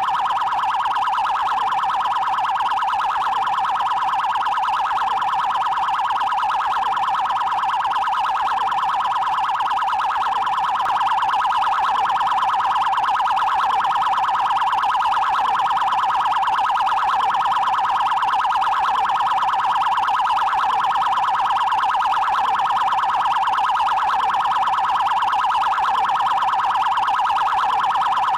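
Brazilian Federal Highway Police (PRF) electronic siren sounding its 'prioridade' (trail) tone: a loud, fast, even pulsing tone held at one pitch without a break.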